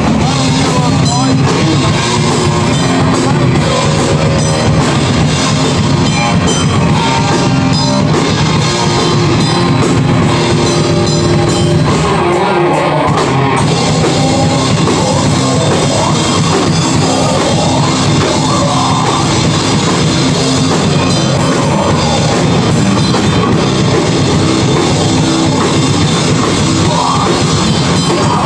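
Heavy metal band playing live: distorted electric guitars over a pounding drum kit, loud and continuous.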